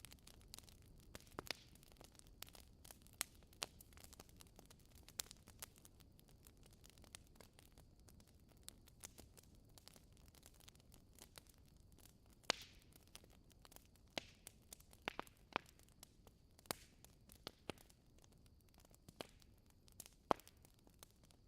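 Wood fire in a fireplace crackling faintly: irregular sharp pops and snaps over a soft steady hiss, with a couple of louder pops about twelve seconds in and near the end.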